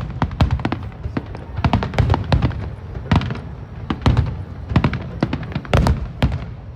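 Aerial fireworks shells bursting in rapid, irregular succession: many sharp cracks, several a second, over a continuous low rumble, thinning out near the end. They are small bursts.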